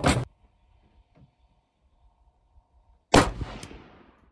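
Ruger Mini-14 Ranch Rifle firing a single 45-grain .223 frangible round about three seconds in: a sharp crack whose echo fades over about a second. A short loud burst comes right at the start.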